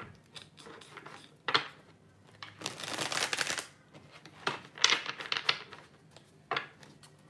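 Tarot cards being shuffled by hand. The cards rustle and slap together in several short bouts with a few sharp clicks, and the longest bout lasts about a second near the middle.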